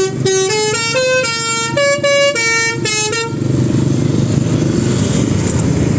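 Telolet bus horn playing a quick tune of about a dozen short stepped notes, which stops about three seconds in. After it, the bus engine keeps running.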